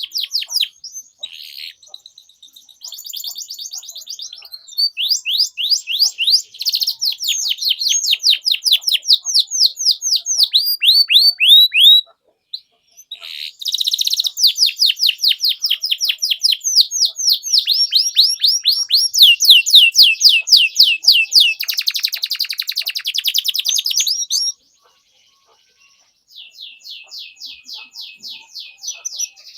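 Domestic canary singing long trills of fast, evenly repeated sweeping chirps, high-pitched, phrase after phrase, breaking off briefly twice.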